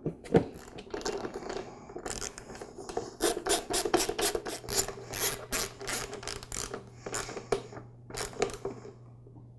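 Ratcheting screwdriver clicking in quick runs while driving the screws that fasten the plastic front pump cover of an oilless air compressor. The clicks start about two seconds in and stop near the end.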